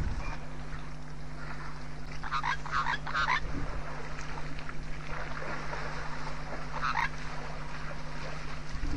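Waterhole ambience: bursts of short, rapid animal calls, a cluster about two to three seconds in and another about seven seconds in, over a steady low hum.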